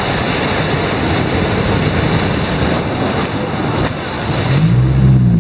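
Motorboat running fast through rough sea: a steady, loud rush of wind and churning water over the motor's drone, with a short rise and fall in pitch near the end.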